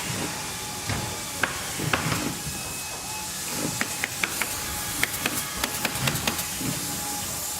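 Factory floor ambience: a steady hiss and machine hum with irregular clanks, knocks and clicks from working machinery, and now and then a faint steady whine.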